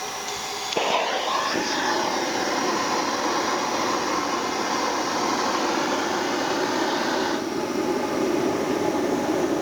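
Gas forge burner running with a steady rushing roar of flame. It jumps louder a little under a second in, and its hiss thins slightly near the end.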